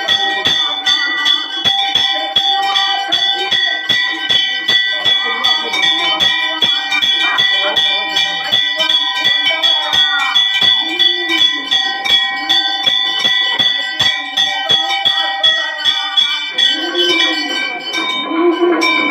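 Hindu temple bells ringing in rapid, even strikes several times a second, their tones ringing on between strokes, with voices faintly underneath.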